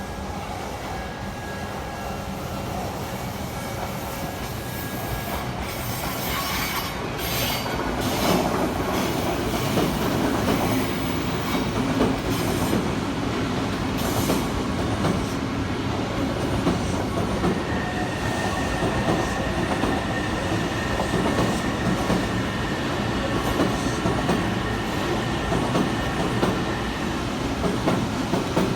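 Odakyu Line train running past at close range, its wheels rumbling on the rails; it grows louder about eight seconds in, and a steady high wheel squeal holds for about ten seconds in the second half.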